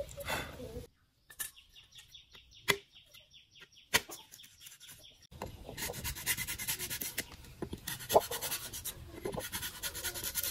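Bamboo being worked by hand: rapid, evenly repeated rubbing and scraping strokes with scattered sharp knocks and clicks. The sound is sparse and quiet in the first half and becomes a dense run of strokes about halfway in.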